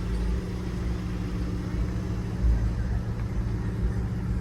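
A vehicle engine idling steadily, with gusts of low wind rumble on the microphone.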